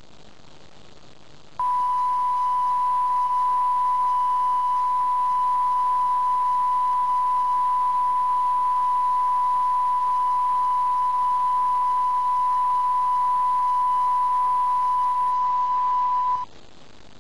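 Broadcast test-card tone from a D2-MAC satellite TV downlink: one steady pitch that starts about a second and a half in and stops abruptly near the end, with a faint hiss before and after it.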